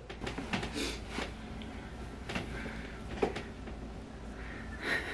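Quiet room with faint rustling and a few soft knocks as a toddler's clothes are handled, and a short breath near the end.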